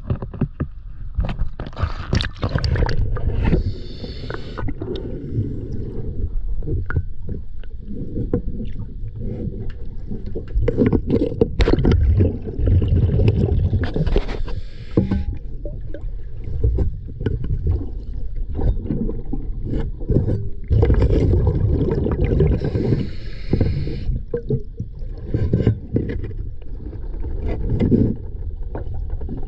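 Water sloshing and gurgling around a camera held at and below the waterline: a muffled, uneven low rumble broken by short splashy bursts several times.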